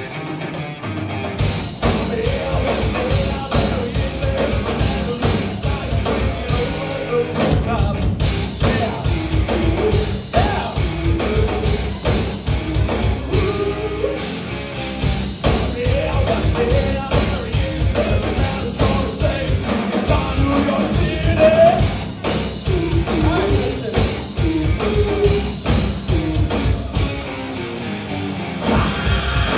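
Live rock band playing with sung vocals over guitars, bass and drums.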